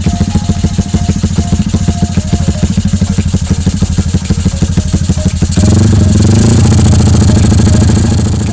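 Motorcycle engine through an aftermarket exhaust idling with a fast, even popping beat, then revved up about five and a half seconds in, held, and easing back off near the end.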